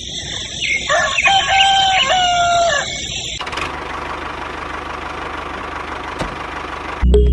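A rooster crowing once, a drawn-out call of about two seconds, over a steady hiss that carries on after the crow ends.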